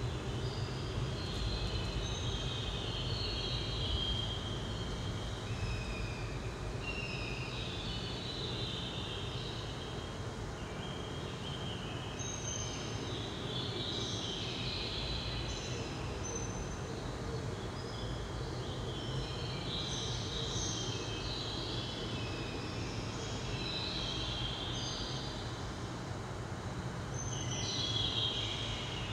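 Installation soundscape: a steady low rumble and hiss with shifting, blocky high whistling tones that step in pitch and come and go.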